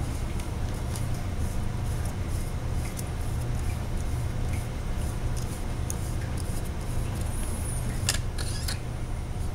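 Steady low room hum and hiss, with light plastic clicks and scrapes as the slotted protective sleeve of a Hanna multiparameter water-quality probe is handled and unscrewed. A few louder clicks come near the end.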